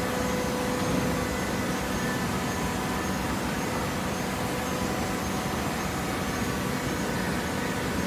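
Automatic hydraulic baler running: a steady machine drone from its motor and hydraulic pump, with a few faint steady tones over an even noise.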